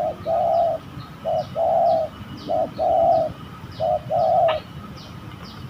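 Spotted dove (tekukur) cooing: four calls in a row, each a short note followed by a longer one. Thin high chirps of small birds sound behind it.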